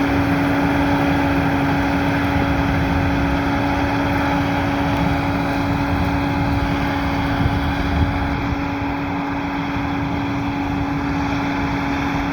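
Steady running hum of a machine: one strong constant tone over a dense, even wash of noise, unchanging throughout.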